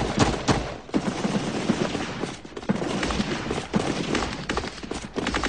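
Rifle gunfire: irregular shots and short strings of shots, coming thick and fast near the end.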